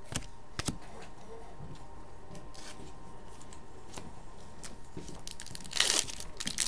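A foil trading-card pack being torn open near the end, a short loud crinkly rip. Before it come a few light clicks of cards being handled and set down.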